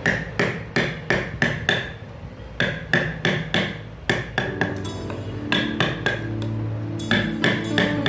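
Wooden mallet striking a steel carving chisel driven into a wooden door panel, about three sharp blows a second, each with a short ring, with a brief pause about two seconds in.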